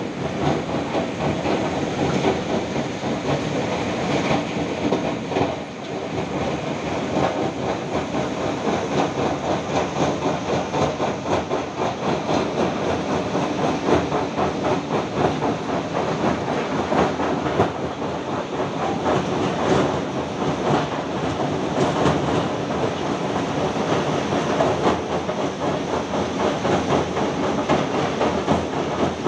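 Heavy construction machinery running steadily: an engine drone under a dense, rapid clatter that keeps on without a break.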